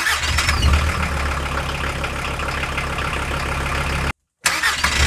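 Volkswagen T4 van engine turned over by a new starter motor. It catches straight away without any noise and settles into a steady idle. The sound cuts off about four seconds in, and a second quick start begins shortly after.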